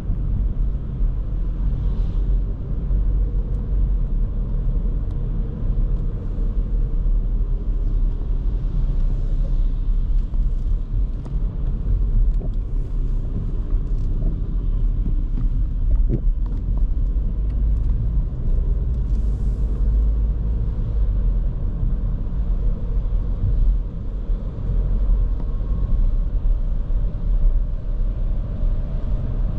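A 2023 Škoda Kamiq's 1.0 TSI three-cylinder turbo petrol engine and tyres making a steady low rumble as the car drives along.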